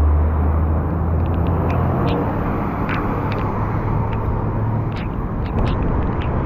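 Heavy rain on a wet street: a steady hiss with scattered sharp drop ticks close by. A vehicle engine's low idling hum is strong at the start and fades after about a second.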